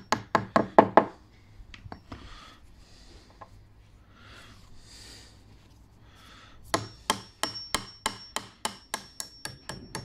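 Claw hammer tapping into a wooden door frame: a quick run of taps on a brown wall plug in its drilled hole, then handling noise, then a steady series of light taps, about four or five a second, driving a long posi screw through the frame into the plug, with a thin high ring held over the later taps.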